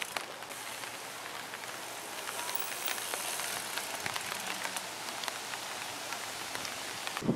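Rain falling steadily on wet ground: an even hiss with scattered small ticks of drops.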